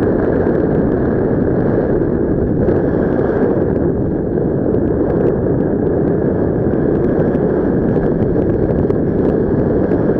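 Steady, loud rush of airflow buffeting the microphone, the wind noise of a paraglider in flight.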